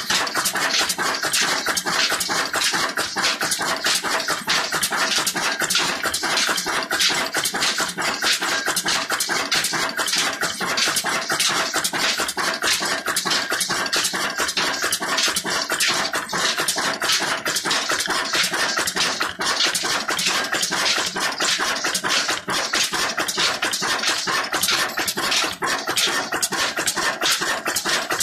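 Old Ruston Hornsby stationary diesel engine running steadily under load, driving a flour mill, with a fast, even mechanical clatter that never lets up.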